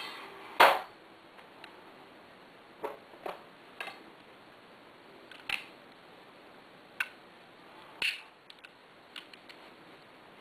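Knipex Cobra 87 02 250 pliers clicking and clacking against copper pipe: a series of sharp metallic clicks at irregular intervals, the loudest about half a second in.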